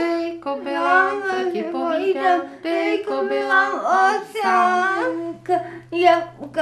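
A girl singing a wordless tune, held notes gliding up and down, breaking into shorter sounds near the end.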